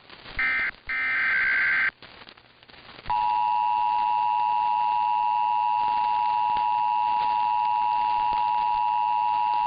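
EAS SAME header data bursts, harsh buzzing warbles, sound in the first two seconds. From about three seconds in, the steady two-tone EAS attention signal (853 and 960 Hz together) sounds without a break, announcing an incoming tornado warning.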